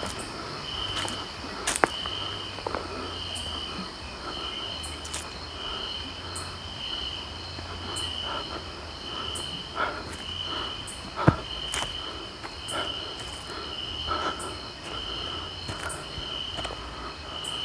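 Crickets chirping in a steady, regular rhythm, a chirp a little more than once a second, with a couple of sharp knocks, the loudest about two seconds and about eleven seconds in.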